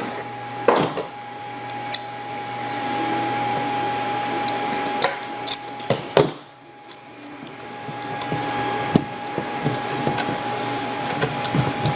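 A small machine running steadily with a constant high whine, with a few sharp clicks and handling knocks; the hum drops briefly about six seconds in and then swells back.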